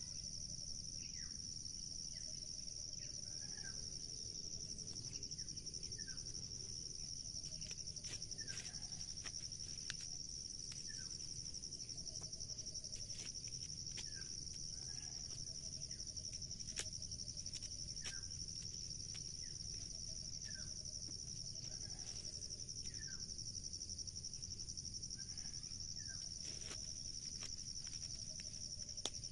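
Insects droning steadily in a high, even tone, with a bird giving a short call over and over, about every two seconds. Faint dry clicks and rustles of corn husks being stripped by hand.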